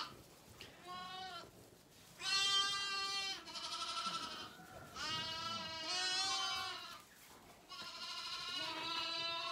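Zwartbles lambs bleating: about five quavering calls of differing pitch, some overlapping, from more than one lamb.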